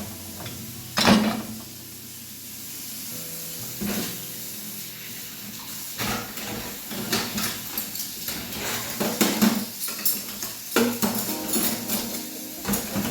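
Plates being set into a dishwasher's lower rack: irregular clinks and clatters of dishes, the loudest about a second in and several more close together in the second half.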